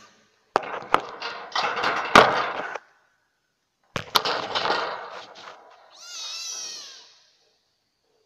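An F1 hybrid kitten (Asian leopard cat crossed with a domestic cat) vocalising in its cage: two harsh, noisy outbursts with sharp pops, then a short, wavering high-pitched cry near the end.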